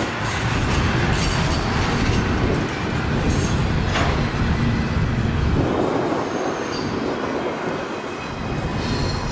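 Double-stack intermodal freight cars rolling past on the rails, a steady rumble and rattle of wheels and cars. The deep rumble drops away about five and a half seconds in as the last car clears, leaving a fainter, fading rail sound.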